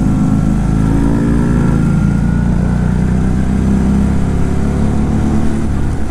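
Motorcycle engine running under way, its pitch rising with the throttle between about half a second and two seconds in, then holding steady.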